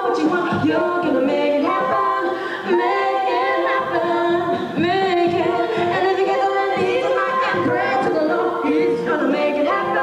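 Unaccompanied voices singing in harmony, a woman's voice among them, sung into a microphone.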